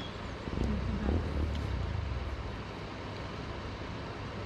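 Steady rushing of a nearby waterfall, with a brief low rumble about a second in.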